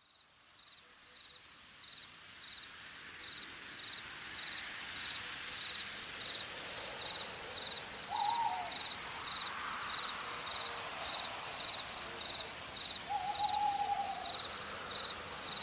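Night ambience fading in from silence: crickets chirping in an even, steady rhythm over a soft hiss, with an owl hooting twice, about eight seconds in and again about five seconds later.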